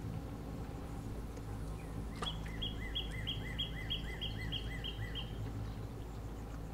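A songbird singing one run of about ten quick repeated two-note phrases, about three a second, starting a little over two seconds in and stopping about three seconds later. A steady low hum lies underneath, and a single sharp click comes just before the song.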